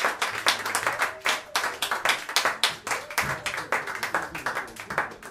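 A small audience applauding, individual hand claps distinct, thinning out toward the end, with a few voices faintly underneath.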